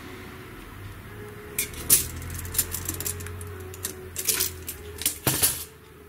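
Light metallic clinks and clicks in irregular bunches, a dozen or so over about four seconds, over a faint steady low hum.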